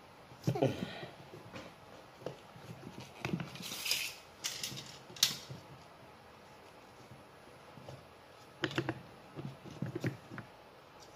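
Handling of PVC pipe and fittings: scattered plastic knocks and clicks, with a short scraping sound about four seconds in and a cluster of knocks near the end.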